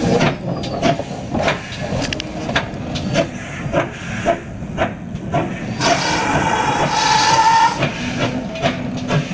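GWR 1400 class steam tank engine No. 1450 working slowly, its exhaust beats coming about twice a second over hissing steam. About six seconds in, its whistle sounds for about two seconds.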